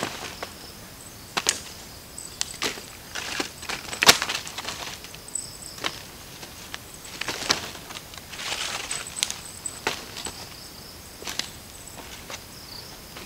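Dry leaves crunching and dry sticks snapping and knocking as firewood is gathered from the forest floor: irregular sharp cracks with rustling between them, the loudest about four seconds in. Insects buzz steadily underneath.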